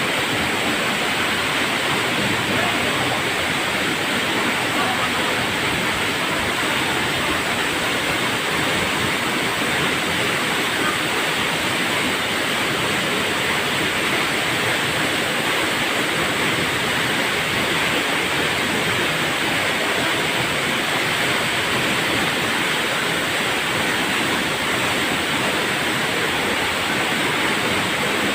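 Waterfall: water pouring down and splashing, a loud steady rush.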